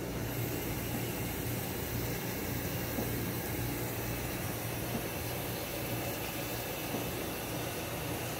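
Steady low hum with an even hiss over it, like a fan or other machine running, with a few faint ticks.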